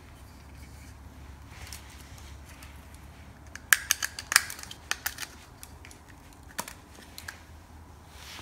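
A quick cluster of sharp clicks and snaps about four seconds in, then a few single clicks, from handling thin beading wire and hand tools, over a low steady hum.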